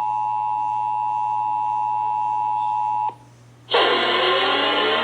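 Emergency Alert System two-tone attention signal: a steady, loud dual tone that cuts off abruptly about three seconds in. After a short pause, loud music starts.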